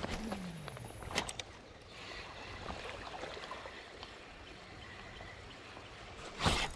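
River water trickling and flowing steadily, with a couple of sharp clicks a little over a second in and a short louder noise near the end.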